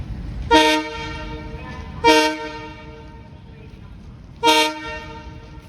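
Diesel locomotive horn of an Indian Railways WDG3A sounding three short toots, the third after a longer gap, over the low hum of the idling diesel engine.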